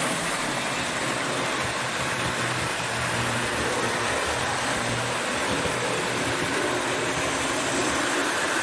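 O gauge toy train running steadily on track: a continuous electric motor hum with the rumble of wheels on rail.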